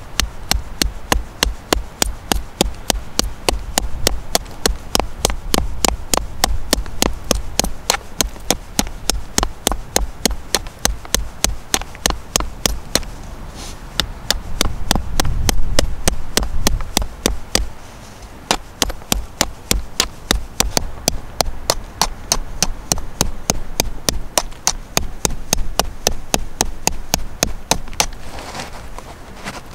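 A knife or scraper drawn along a thin shaft in quick, evenly paced strokes, about three a second, each stroke a short sharp click. Around the middle there is a louder low rumble of handling.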